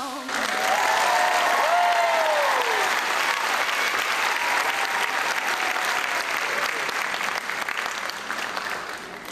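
Audience applauding, with voices whooping and cheering over it in the first few seconds; the applause slowly dies down.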